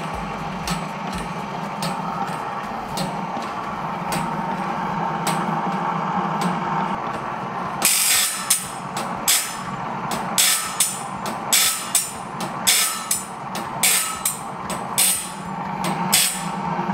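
An old band saw blade sharpening machine is running with a steady motor hum and a light, regular ticking as its feed advances the blade. About eight seconds in, the grinding wheel starts biting into the hardened blade's teeth, giving a sharp grinding stroke on each tooth, about two a second.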